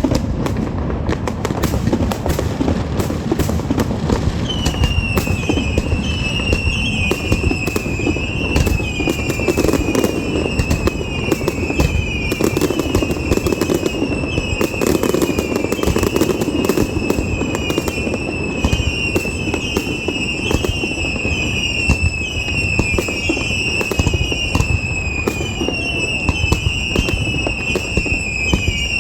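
Fireworks going off continuously, a dense run of crackles and booms. From about four seconds in, a short falling whistling tone repeats roughly once a second over the bursts.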